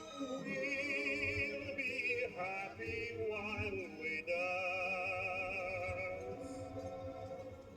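A vinyl record playing on a vintage record player: a solo singer in an operatic style, holding long notes with a strong vibrato over instrumental accompaniment. A few sharp ticks from the record surface come through.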